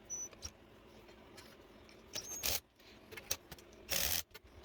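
Metal hand tools clinking and rattling against the sprocket's mounting bolts, with a few short clicks and two brief louder scraping rattles, one about two seconds in and one near the end.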